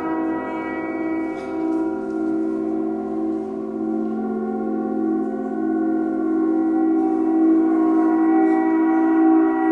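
Large suspended bronze gongs ringing in a sustained drone of many overlapping tones with a slow pulsing wobble. A lower tone swells in about two seconds in, and the sound grows a little louder near the end.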